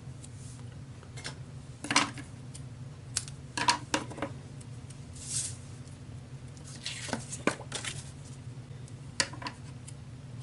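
Small crafting tools and paper being handled on a work table: scattered light clicks and taps, with a short rustling swish about halfway through and another a little later. A faint steady low hum runs underneath.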